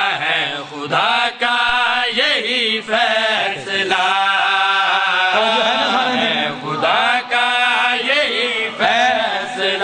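Male voices chanting a devotional qasida refrain in long held notes that waver in pitch, with short breaks for breath.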